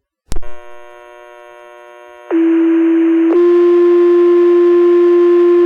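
Fire-dispatch radio paging tones: a two-tone sequential alert, with one steady tone for about a second followed straight away by a second tone held for about three seconds. It comes after a click as the transmitter keys up. This is the page that alerts the volunteer firefighters to respond.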